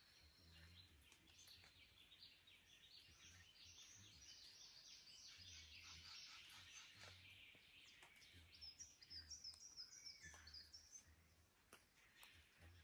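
Faint dawn chorus of Australian forest birds: many birds chirping and trilling at once. A run of quick, high notes stands out from about nine to ten and a half seconds in.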